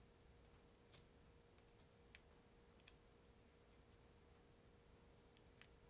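Near silence with a few faint, scattered clicks: small flush cutters picking at the lacquer-coated field-coil windings of an electric sewing machine motor, chipping away the varnish. A faint steady hum lies underneath.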